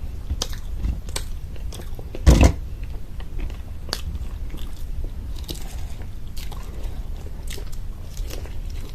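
A person biting into and chewing a crunchy homemade samosa, with repeated crackles of the fried pastry. One louder thump about two seconds in.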